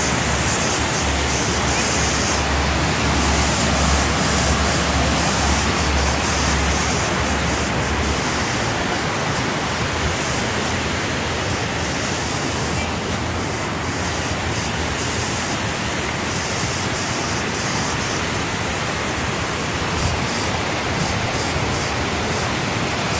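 Water rushing steadily over a low weir and across rocks, a continuous even rush with a low rumble in roughly the first eight seconds.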